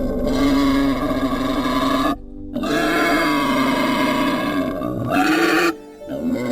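Wild boar calling: three long, drawn-out calls in a row, separated by short breaks.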